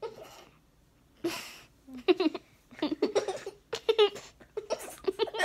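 A young girl giggling in a run of short bursts, after a breathy puff about a second in.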